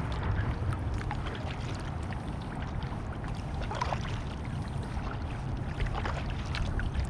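Water splashing and trickling lightly around a kayak moving on a river, in scattered small splashes and drips, with a steady low rumble of wind on the microphone.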